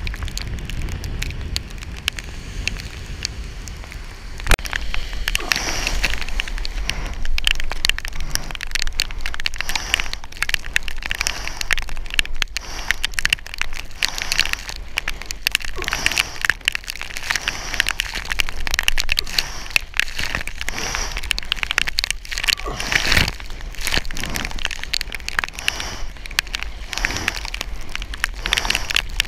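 Water splashing around a surfboard in choppy waves, with a steady crackle of rain and spray striking the camera. Now and then a sharper, louder splash stands out.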